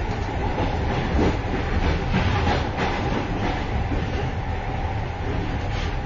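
Moving train heard from inside the vestibule between cars: a steady low rumble of the running train, with a run of metallic clattering and clickety-clack of the wheels over rail joints in the middle.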